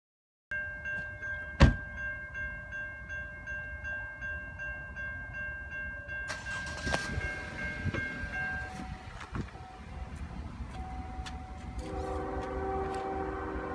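A distant diesel locomotive's multi-note air horn sounds from near the end as a freight train approaches, over a steady outdoor background. Earlier a steady high tone with a fast pulse runs for several seconds, and a single loud knock comes at about a second and a half in.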